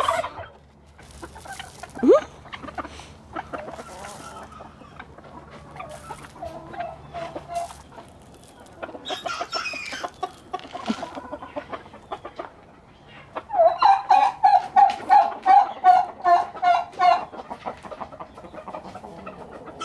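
Chickens clucking: scattered single clucks, then a loud run of rapid, evenly repeated calls, about six a second, for some three seconds near the end.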